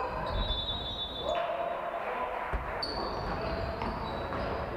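Basketball game sounds in a large sports hall: the ball bouncing on the wooden floor, short high squeals from shoes and players' voices calling out, all echoing in the hall.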